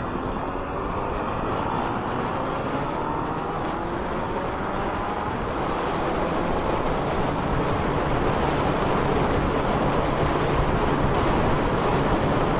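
Suzuki 1200 Bandit's inline-four engine rising in pitch as the motorcycle accelerates away, with wind rushing over the microphone that grows louder as speed builds.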